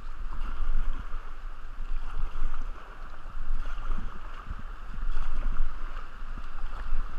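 Whitewater rapids rushing around the raft, with wind buffeting the microphone in uneven gusts.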